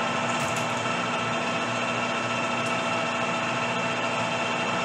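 Metal lathe running steadily with its chuck spinning, a constant hum and whine of motor and gearing, during a cleanup threading pass on a rifle barrel's threads with no infeed, the tool cutting almost nothing.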